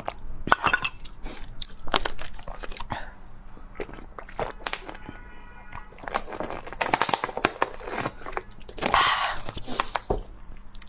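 Close-miked eating sounds: wet chewing and mouth clicks, then swallowing gulps as she drinks from a plastic bottle, with the plastic crinkling.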